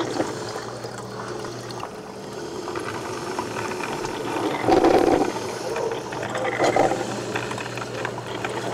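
Drip coffee maker brewing: liquid running and bubbling into the glass carafe over a low steady hum, with a louder surge about halfway through and another about two seconds later.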